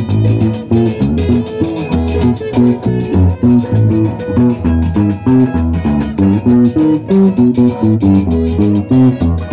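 Carranga band playing, with plucked guitar-family strings picking a lively melody over a bass line and a steady dance beat.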